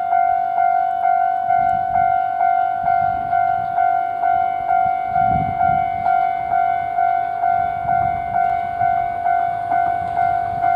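Japanese railway level-crossing warning bell ringing in an even, steady clang of about two and a half strikes a second, with the low rumble of an approaching diesel railcar underneath, strongest around the middle.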